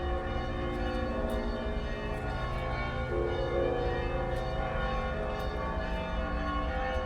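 Russian Orthodox church bells ringing, several bells struck over one another, their tones ringing on and overlapping.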